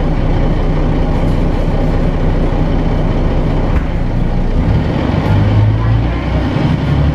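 Articulated city bus's diesel engine and drivetrain heard from inside the passenger cabin while the bus is under way: a steady low drone that swells about five seconds in, then changes pitch near the end.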